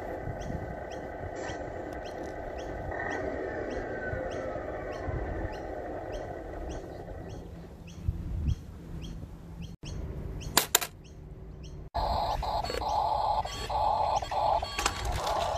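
A small RC tractor's electric drive motor and gearbox whining in pulses as it drives along the trailer deck towards the ramps, after a steady background hum with faint regular ticks about one and a half times a second.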